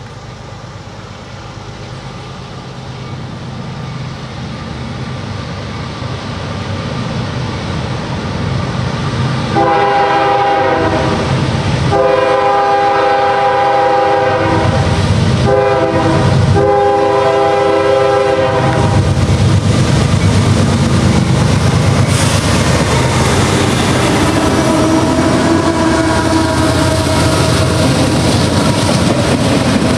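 CSX freight train led by GE diesel locomotives ES40DC 5382 and CW44AC 315, growing steadily louder as it approaches. About ten seconds in, the air horn sounds a chord of several tones in four blasts, long, long, short, long: the grade-crossing signal. The locomotives and train then pass close by, loud and steady.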